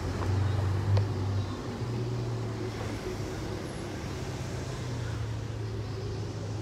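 City street traffic: a steady low engine hum of passing vehicles, with one short knock about a second in.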